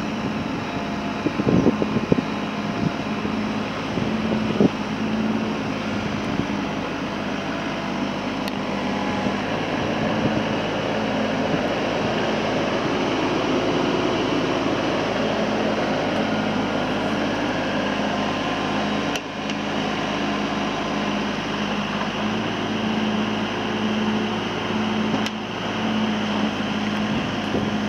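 Kubota RX-306E mini excavator's diesel engine running steadily under hydraulic load while the machine lifts itself on its boom and blade and works its arm. A few metallic clanks come about a second and a half in and again at about four and a half seconds.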